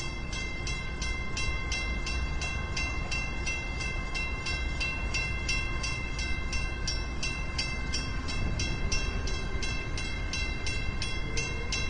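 Drawbridge warning bell ringing rapidly and evenly, about four strikes a second, signalling that the bascule bridge is about to open. A steady low rumble lies underneath.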